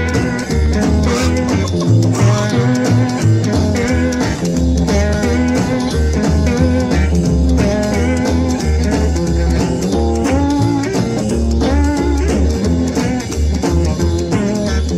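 Blues instrumental recording: electric lap steel guitar playing gliding, sliding lines over a steady bass line and drums.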